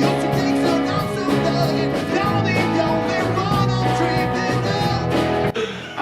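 Rock song with electric guitars, drums and a singing voice, cutting off abruptly about five and a half seconds in.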